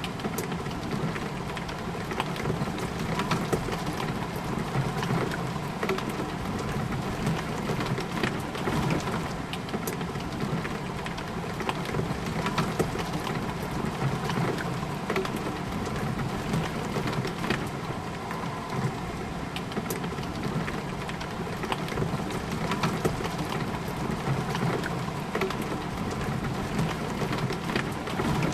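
Steady rain pattering on a window pane, with many separate drop ticks over a constant hiss.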